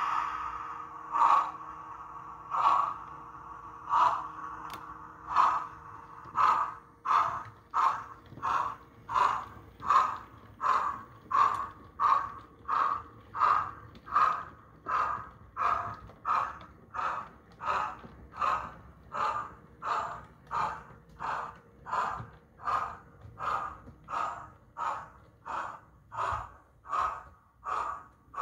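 DCC sound decoder in a model of Bulleid Merchant Navy steam locomotive 35004 playing exhaust chuffs as the loco pulls away. A few slow, spaced chuffs quicken after about six seconds to a steady beat of a little under two a second.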